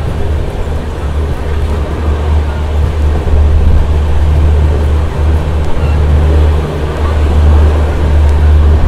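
Loud, steady low drone of the end-on-generation (EOG) power car's diesel generators, heard from the open door of the coach next to it as the train moves along the platform. The speaker calls it annoying.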